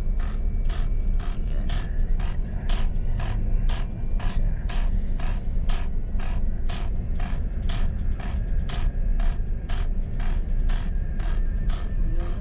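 Even, rapid mechanical ticking, about three ticks a second, over a steady low machinery hum.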